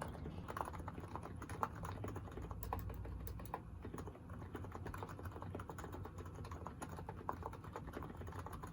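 Typing on a Niz Plum Atom 68, an electrostatic capacitive (Topre-style) keyboard: a quick, irregular run of soft keystrokes.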